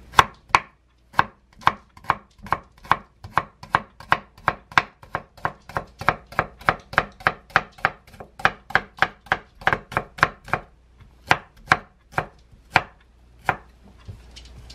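A chef's knife slicing a Korean green onion (daepa) into rounds on a wooden cutting board: crisp, even knife strokes through the stalk onto the wood, about three a second. There is a brief pause about ten seconds in, and the strokes stop shortly before the end.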